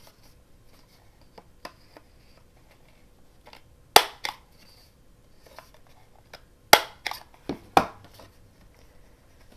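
Corner rounder punch snapping as it cuts the corners of a paper tag: sharp clacks, one about four seconds in and a cluster of several a few seconds later, with quiet handling clicks between.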